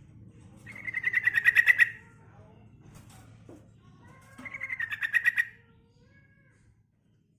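Female yellow-vented bulbul (trucukan) calling: two rapid trills of quick, evenly repeated notes, about a second each, the second coming some three seconds after the first.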